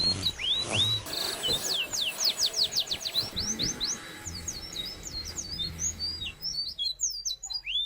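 Small birds chirping and singing: a dense run of quick sweeping high notes in the middle, scattered chirps after it, and a few repeated curved calls near the end.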